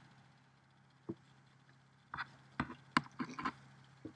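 A man drinking from a beverage can: a soft click about a second in, then a cluster of short, faint clicks and knocks from the can and his swallowing, over a steady low hum.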